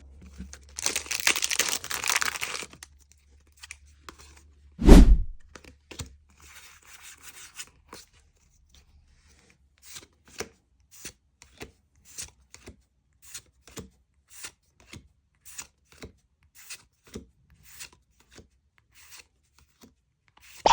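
Foil booster pack of Pokemon trading cards torn open by hand, followed by a single loud thump, then cards handled one after another with a short soft click every half second or so.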